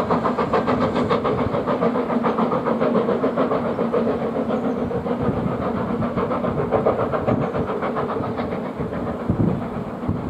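Steam locomotive working a train of coaches, its exhaust beating fast and evenly over a steady mechanical hum, growing a little fainter near the end as the train draws away.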